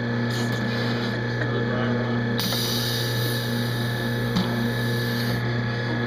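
Steady low hum of a student-built conveyor machine running. About two and a half seconds in, a hiss starts and lasts about three seconds.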